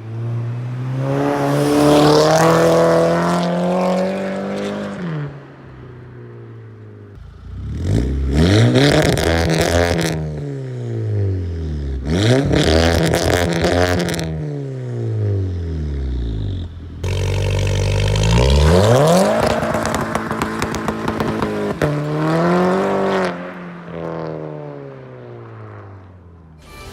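Mk6 Golf GTI's 2.0-litre turbocharged four-cylinder, breathing through a catless downpipe and a cat-back exhaust with no resonator, pulling hard four times. Each time the exhaust note climbs and then falls away as the throttle is eased off.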